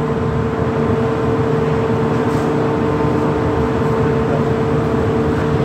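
Steady machinery noise: a low rumble with a constant hum, loud and unchanging throughout.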